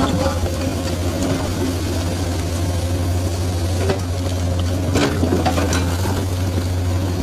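Komatsu excavator's diesel engine running with a steady low drone, with a few short knocks about four and five seconds in.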